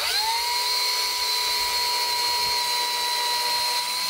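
Cordless drill boring a pilot hole into a eucalyptus stick. The motor whine rises briefly at the start as it comes up to speed, then holds one steady pitch.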